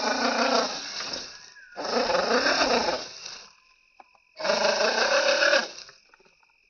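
RC car's electric motor and gears whining in three bursts of throttle, the pitch rising and falling within each burst.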